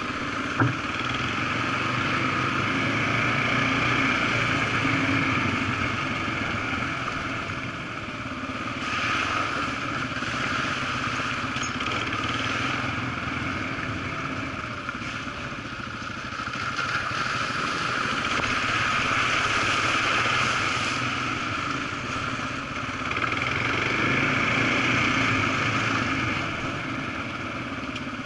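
Off-road motorcycle engine heard from on board the bike while riding a rough trail, swelling and easing in waves as the throttle opens and closes. A single sharp knock about half a second in.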